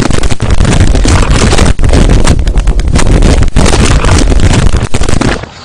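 Wooden treehouse collapsing: a very loud, dense crashing rumble full of cracks. It starts suddenly and cuts off suddenly near the end.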